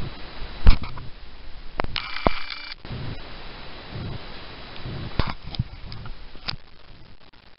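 Sulphur-crested cockatoo biting and chewing a cracker held in its foot: sharp cracks and clicks of the beak breaking off pieces, the loudest about a second in, with soft chewing thuds between them. A brief high tone sounds about two seconds in.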